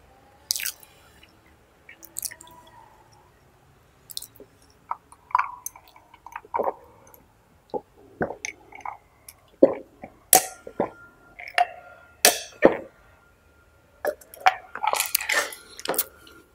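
Mouth sounds of a man eating: irregular wet chewing and lip smacks, with gulps as he drinks from a glass mug about halfway through.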